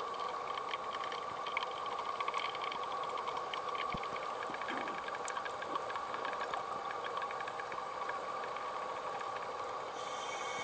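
Underwater ambience picked up through a dive camera housing: a steady hiss with a constant hum and a scatter of faint crackling clicks. About ten seconds in, a short burst of sharper hissing noise.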